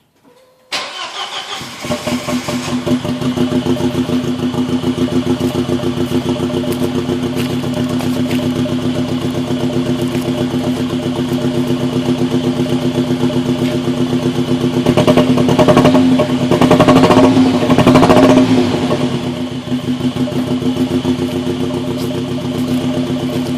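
Audi A4 1.8T turbocharged four-cylinder engine cranked and started from cold about a second in, then running with an uneven, pulsing idle: a bad misfire, the engine running on only two cylinders. It is revved briefly and louder about two-thirds of the way through before settling back to the lumpy idle.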